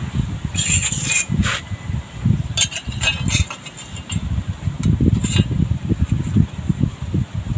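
Short metallic clinks and taps in a few clusters as a stainless steel tube, steel washers and a steel ruler are handled on concrete, over wind buffeting the microphone.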